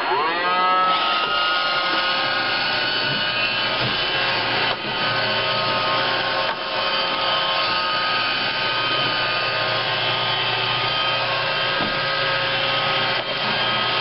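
iRobot Roomba robot vacuum's motors spinning up with a rising whine about a second in, then running steadily as it drives under a low wedge and works itself free, with a few faint knocks.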